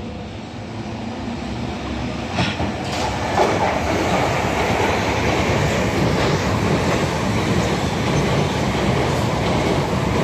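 A Southern multiple-unit passenger train passing through the station at speed: the rush of wheels on rail builds from about two seconds in and stays loud and steady, with a few sharp clicks early in the pass.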